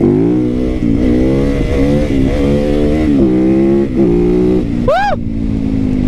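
Supermoto motorcycle engine revving up and falling back in repeated surges, about five in quick succession, then holding at a steadier, lower pitch. A brief high chirp comes about five seconds in.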